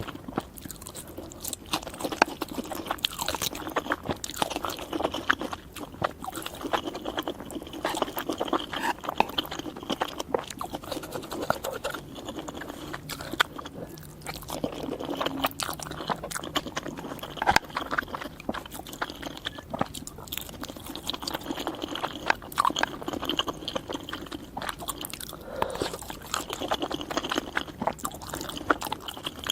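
Close-miked chewing of noodles, with continual irregular wet clicks and crackles from the mouth.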